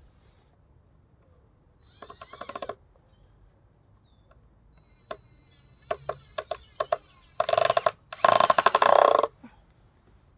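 A cordless power driver driving screws into timber: a short burst of rapid pulsing about two seconds in, a few sharp knocks, then two loud, longer runs of rapid pulsing near the end as a screw is sunk home.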